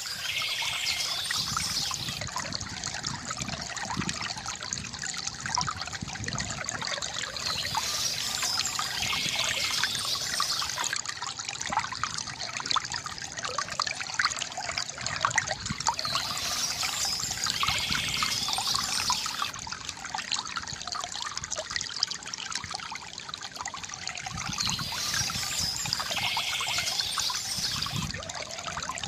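River water gurgling and trickling steadily. A brighter high hiss comes and goes about every eight or nine seconds.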